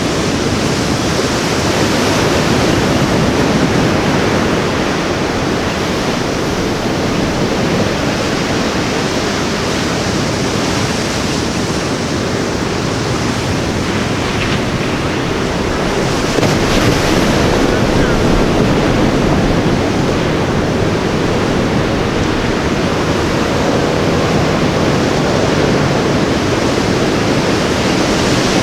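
Ocean surf washing onto a beach: a steady roar of breaking waves that swells a little louder a couple of times.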